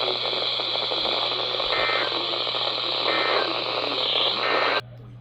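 Steady hiss of radio static left after an emergency alert voice message, with three short, faint data bursts about a second and a half apart: the EAS end-of-message code closing the alert. The hiss cuts off suddenly near the end.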